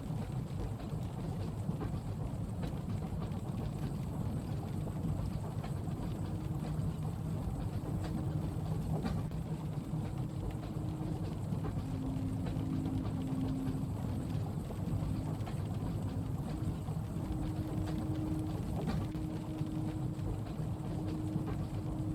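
Steady low rumble of a moving train carriage mixed with gentle rain on the window, with a faint hum that comes and goes and a few faint clicks.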